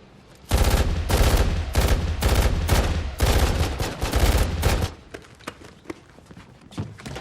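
Automatic gunfire: several guns fire rapid, overlapping bursts for about four and a half seconds, starting about half a second in and stopping abruptly, followed by a few faint scattered clicks.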